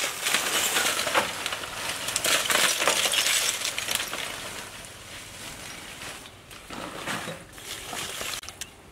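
Lumps of charcoal poured from a sack onto the grate of a steel barbecue grill: a dense clattering and clinking for the first few seconds, then quieter scattered clinks as the charcoal is shifted by hand.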